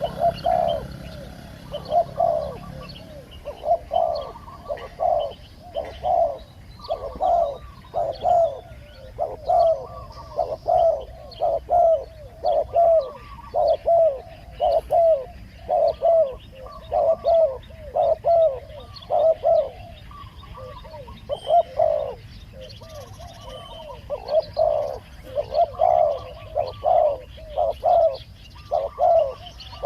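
Spotted doves cooing in a long, steady run of repeated coo phrases.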